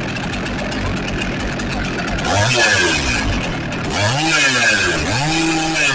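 Holzfforma G888 chainsaw's large two-stroke engine idling, then revved up and back down about three times from about two seconds in. The saw is new and set to run rich.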